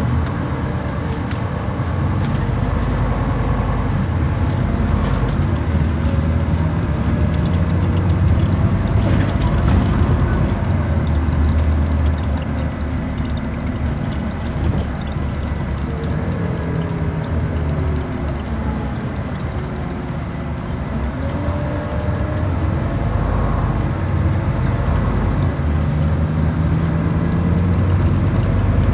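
Scania-engined Enviro 400 double-decker bus heard from the passenger saloon while driving: a steady low diesel drone, with a whine that rises in pitch several times as the bus accelerates through its gears.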